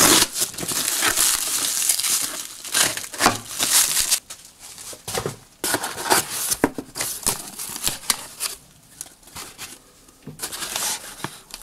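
Plastic stretch wrap crinkling and tearing as a utility knife cuts it and hands pull it off a cardboard box, loudest over the first few seconds; then cardboard flaps rustling and scraping as the box is opened.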